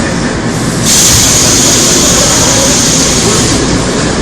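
Seoul Metro Line 2 old 2000-series resistor-controlled electric train running, heard from inside the car: steady rumbling running noise. About a second in, a loud hiss starts suddenly and cuts off about three and a half seconds in.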